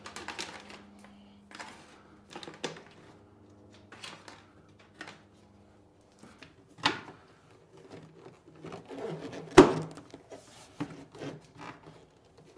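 Rustling, rubbing and scattered knocks from a wire harness and a Club Car DS golf cart's instrument panel being worked back into the dash. A sharp knock about three-quarters of the way through is the loudest sound.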